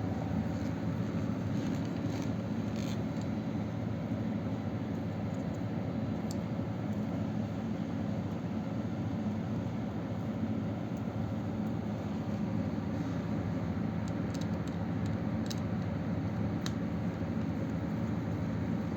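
Steady low mechanical rumble from nearby machinery, with a few faint clicks of wires and terminals being handled as the motor's leads are connected.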